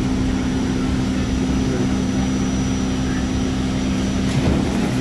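R44 subway car on the Staten Island Railway running, a steady rumble with a constant two-note electrical hum and a faint high whine. There is a brief knock about four seconds in.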